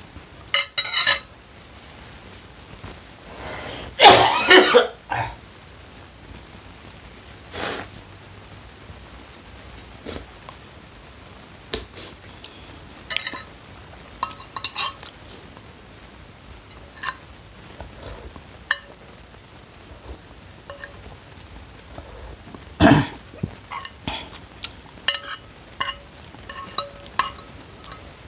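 Steel spoon and fork clinking and scraping against a bowl of noodle soup during eating, in scattered short clicks. Two louder mouth sounds stand out, one about four seconds in and one near 23 seconds.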